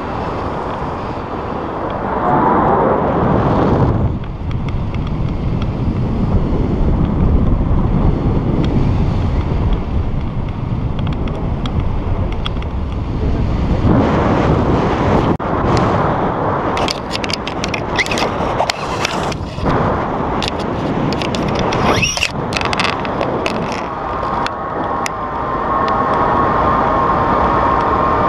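Wind rushing over an action-camera microphone in flight under a tandem paraglider, a steady rumble and buffeting. From about halfway through, a run of sharp clicks and rattles joins it.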